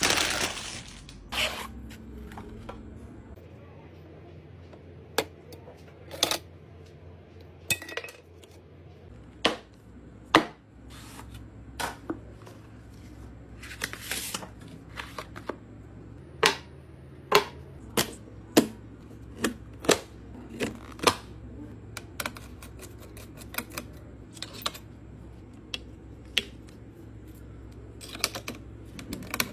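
Irregular sharp clicks, knocks and taps of hard computer parts being handled and fitted together during a PC build, over a low steady hum.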